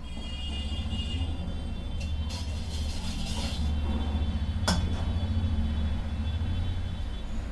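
A steady low rumble throughout, with a single sharp metallic clink a little before five seconds in as a utensil or steel bowl is handled.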